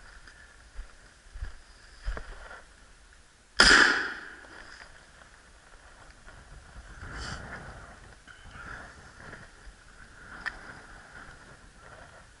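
One sharp, loud bang about three and a half seconds in that dies away over about half a second, among scattered lighter clicks and knocks.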